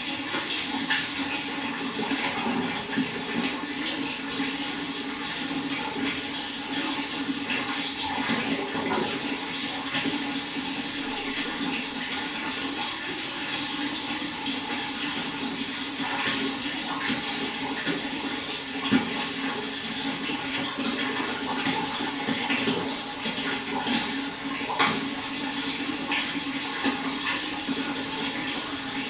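Steady running water, with a few brief louder splashes.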